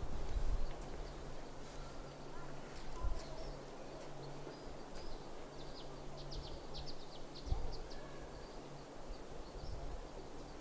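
Small birds chirping over quiet background noise, with a quick run of short high chirps about halfway through. A low steady hum sits underneath.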